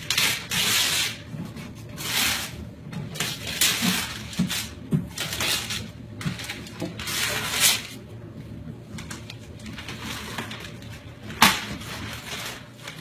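Gift wrapping paper being torn and crumpled off a box in repeated irregular rips, with a single sharp knock near the end.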